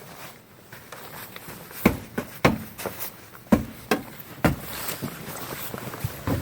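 Footsteps crunching and thudding through deep fresh snow: about seven uneven steps, starting about two seconds in.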